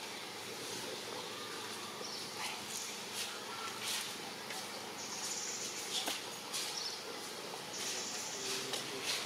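Outdoor insect chorus: a steady high buzzing, with two louder high-pitched buzzes of about a second each, roughly five and eight seconds in, and scattered light clicks.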